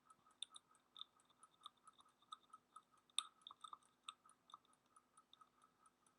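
Faint, irregular small clicks from computer input, several a second, over a faint steady hum.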